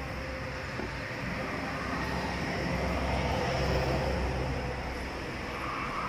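A steady low mechanical rumble with a hum, swelling slightly in the middle.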